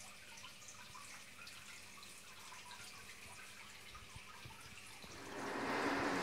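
Small home-made decorative fountain splashing into its pool, with faint trickling and dripping that grows much louder about five seconds in.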